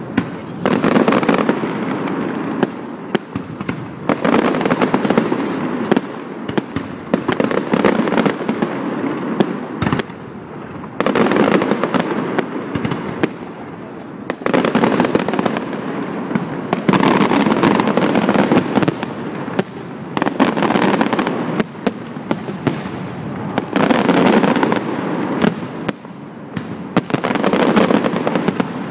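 Aerial fireworks display: shells bursting in rapid, overlapping barrages that come in loud waves of a second or more, with brief lulls between them.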